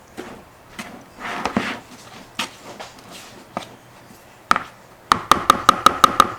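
Kitchen utensil knocking against a bowl while chicken is worked through batter: scattered knocks and a brief sloshing scrape, then about five seconds in a fast run of sharp taps, about six a second, each with a short ring.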